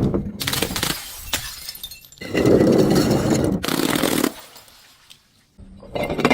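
Glass bottles breaking and crunching as they are crushed, in two long spells of cracking and shattering, followed by a faint low hum near the end.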